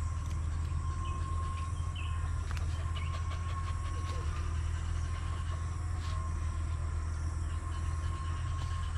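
Steady low mechanical hum, like a distant engine running, with a thin constant whine above it.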